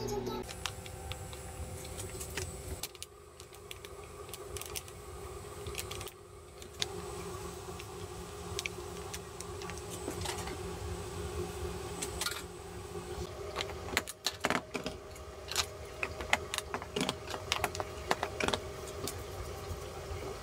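Small clicks and clinks of containers and utensils being handled on a cafe counter, over a steady machine hum. The clicking gets busier in the second half.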